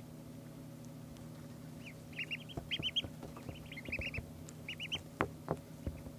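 Two-day-old duckling peeping: short high-pitched peeps in quick runs of three or four, starting about two seconds in. A few sharp knocks come near the end, over a steady low hum.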